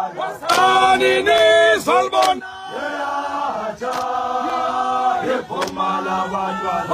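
A group of men singing a chant, with long held notes that bend at their ends, and a few sharp clicks in between.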